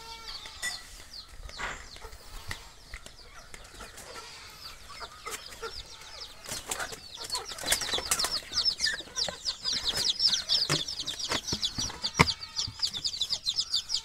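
Day-old local chicken chicks peeping, a dense chorus of short high cheeps that grows louder and busier about halfway through, with a few knocks from handling.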